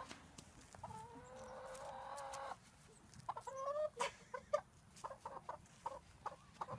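Domestic hen calling while being grabbed and held: one long drawn-out squawk, then a bending call and a run of short clucks near the end.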